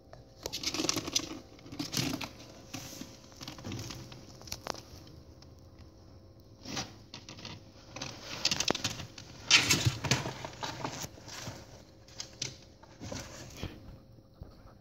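A ferret scrabbling about its cage: irregular bursts of rustling and scratching in shredded paper bedding and on plastic, with sharp clicks, loudest about ten seconds in.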